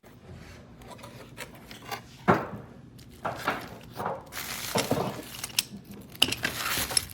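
Rummaging through packaging and loose parts: irregular clattering and clinking of small hard objects. A sharp knock comes about two seconds in, and denser rustling and clinking follows in the second half.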